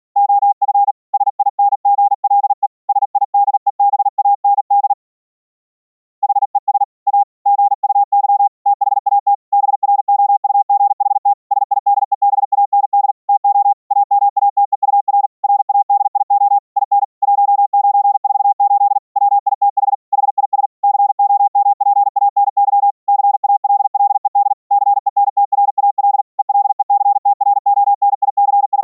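High-speed Morse code: rapid on-off keyed audio notes in one narrow pitch band around 800 Hz, with a pause of about a second about five seconds in.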